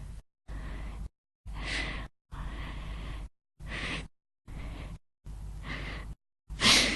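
Short recorded breaths and sighs from one voice, spliced one after another, each under a second and cut off sharply into dead silence between them. A louder, sharper breath comes near the end.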